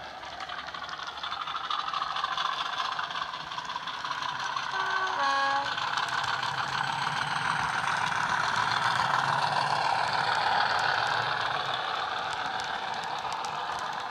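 Class 50 model locomotive's DCC sound decoder playing the diesel engine running under power through its speakers, growing louder as the train passes and easing off near the end. About five seconds in, the two-tone horn sounds once, a high note then a lower one.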